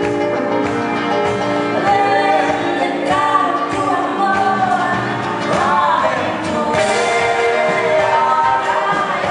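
Live band music: singing over strummed acoustic guitar and electric guitar, with the voice coming in about two seconds in.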